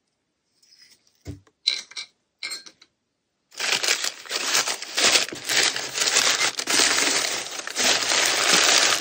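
Crumpled newspaper packing rustling and crinkling loudly as hands dig through it in a cardboard box, starting about three and a half seconds in. Before that, a few faint small clicks.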